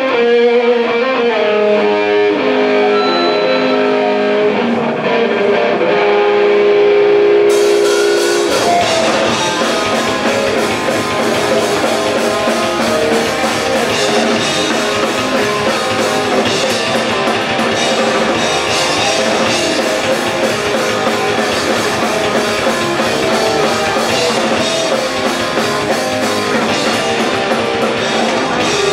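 Punk rock band playing live. A guitar plays the opening notes alone, then drums and the full band come in about seven seconds in and play on.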